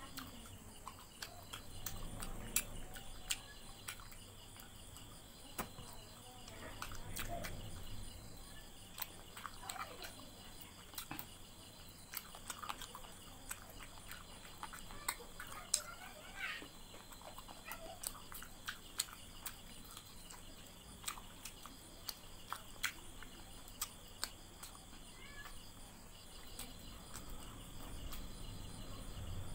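Close-up eating sounds as chicken curry is eaten by hand: chewing, lip smacks and scattered sharp clicks of fingers and food on a plate. A faint steady high-pitched chirring runs underneath.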